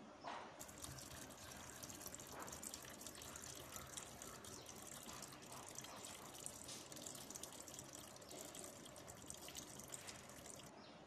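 Tap water pouring into a small metal pot standing in a stainless steel sink, splashing in the full pot. It starts about half a second in and cuts off shortly before the end.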